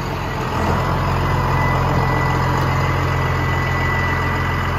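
Cummins 5.9-litre turbo diesel of a 2001 Sterling L7500 truck idling steadily, growing a little louder about half a second in.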